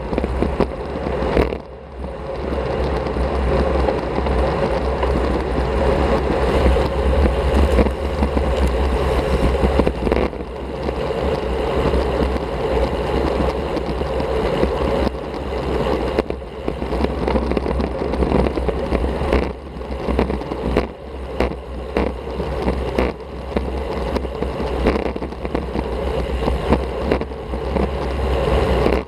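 Wind rushing and rumbling on a Shimano CM-1100 action camera's microphone while riding a road bike at speed, mixed with tyre noise on the road. It eases briefly about two seconds in.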